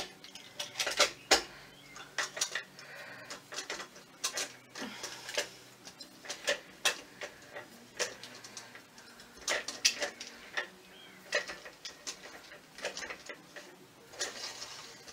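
Irregular light clicks and knocks of hard parts as the top section of a flat-pack coat rack is handled and fitted onto its pole.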